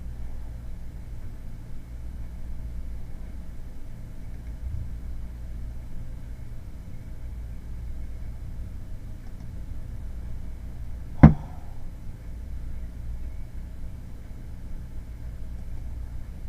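Steady low background hum, with one sharp knock about eleven seconds in.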